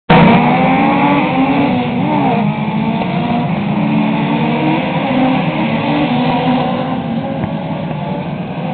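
A pack of Legends race cars running round an oval track, their motorcycle engines rising and falling in pitch together as the cars lift and accelerate through the bends. The engine sound is loud and steady, easing slightly near the end.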